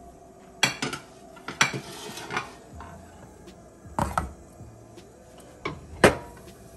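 Stainless steel mixing bowls and a pan clanking as they are handled and set down: a handful of sharp metal clanks, the loudest near the end.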